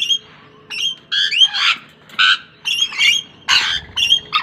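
Lorikeets screeching: a quick run of about a dozen short, shrill squawks.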